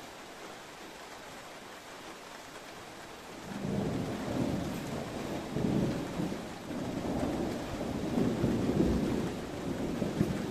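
Steady rain, then about three and a half seconds in a long roll of thunder begins and rumbles on, swelling and easing several times, heard from inside a room.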